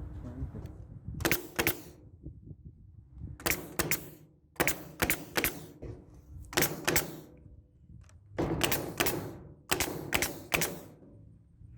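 Staple gun driving 1.5-inch staples through wooden furring strips: about six quick bursts of two or three sharp clacks each, spaced a second or two apart.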